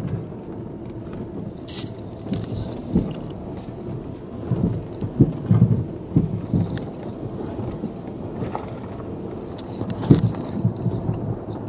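Car cabin road noise on a rutted, potholed dirt road: a low rumble broken by irregular thumps and knocks as the tyres and suspension hit ruts and potholes, the biggest about five seconds in and again near ten seconds.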